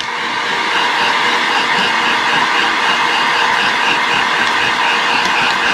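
Handheld hot-air gun running steadily: a constant rush of air from its fan.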